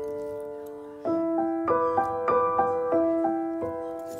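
Background piano music: a slow, gentle melody of held notes that fade away, with new notes struck about a second in and then every half second or so.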